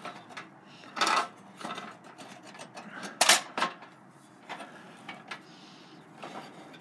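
Vintage Buddy L pressed-steel toy truck being handled: a few clicks and metal-and-plastic clunks as its rear panel and body are moved, the loudest about three seconds in.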